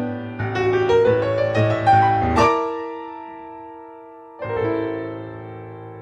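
Background music: a rising run of notes, then a chord that rings and fades from about two and a half seconds in, and another chord struck about four and a half seconds in.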